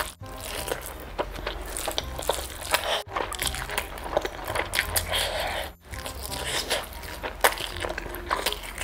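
Close-miked eating sounds: wet chewing, mouth clicks and smacks of someone eating rice and chicken in gravy by hand. The sound drops out briefly twice, about three and six seconds in.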